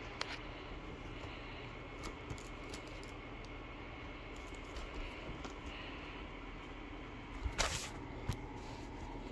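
Small plastic clicks and rustles from a shrink-wrapped DVD case being handled, over a steady background hiss and hum, with a louder, brief rustling noise about seven and a half seconds in.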